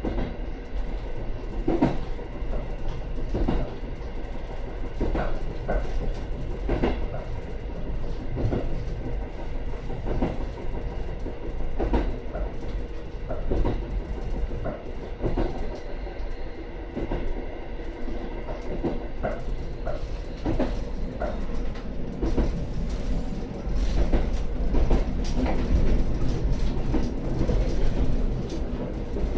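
A diesel railcar running along the line, heard from inside its rear cab. There is a steady low rumble, and the wheels clack over rail joints roughly once a second. The running grows louder about three-quarters of the way through.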